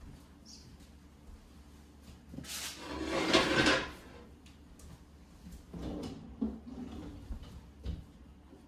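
A kitchen drawer slides with a loud rush about two and a half seconds in, followed a few seconds later by several lighter knocks and clatters.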